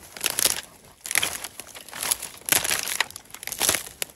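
Footsteps crunching over a carpet of dry reed stalks, the brittle stalks crackling and snapping in a burst with each step, about two steps a second.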